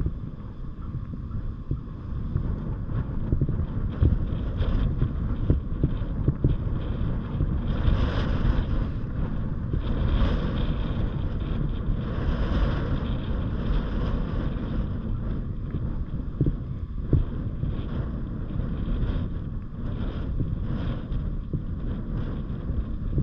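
Wind buffeting the microphone: a continuous gusty rumble with a hissing rush that swells a few times near the middle.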